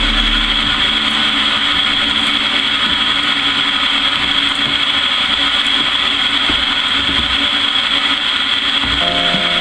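A wooden mash paddle stirring crushed malt and hot water in a stainless mash tun, over a steady machine hum with a constant high whine.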